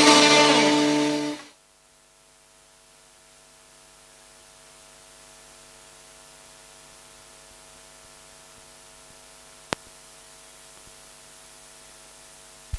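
Dance music stops about a second and a half in, leaving a faint, steady electrical hum, with one short sharp click near the end.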